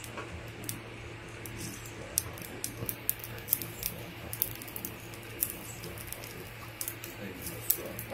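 Irregular sharp clicks and crackles, a few each second and unevenly spaced, over a steady low hum.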